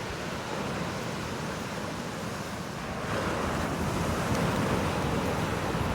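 Ocean surf washing on the shore, a wave swelling louder about three seconds in, with wind rumbling on the microphone.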